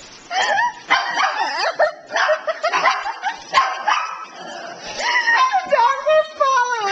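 Dogs barking and yipping during rough play, many short high yaps coming close together.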